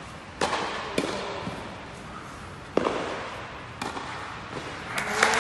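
Tennis ball struck back and forth with rackets in a rally on an indoor court, each sharp hit echoing in the hall. The hits come every second or two, with a louder, denser burst of sound near the end.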